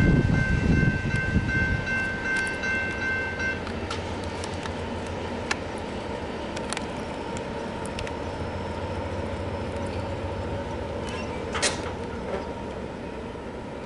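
The tail of a double-stack intermodal freight train rumbling and clattering through the grade crossing for the first couple of seconds, with a steady high tone that stops about three and a half seconds in. After that the crossing's electronic warning bell keeps sounding steadily over light background noise, with a click near the end.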